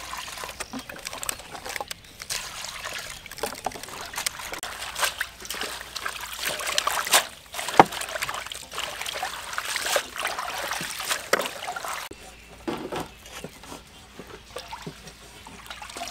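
Water poured into a metal basin, then hands swishing and splashing water spinach in the basin of water as the greens are washed, with many short splashes; the splashing dies down after about twelve seconds.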